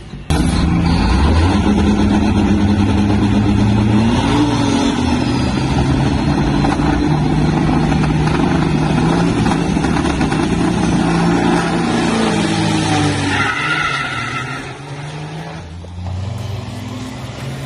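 Big-rig semi truck's diesel engine at full throttle in a drag race, starting abruptly and climbing in pitch, then dropping back at each of several gear shifts as the truck pulls away.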